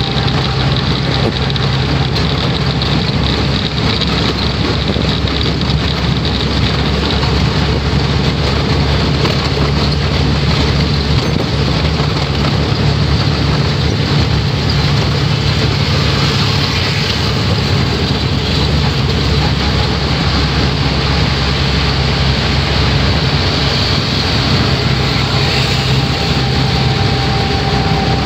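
Auto-rickshaw engine running steadily while under way, heard from inside the open cabin together with wind and road noise.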